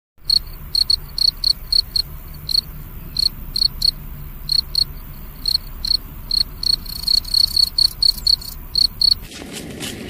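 Field cricket chirping: short, high-pitched chirps, two or three a second at an uneven pace, running together into a brief trill about seven seconds in. The chirping cuts off abruptly near the end.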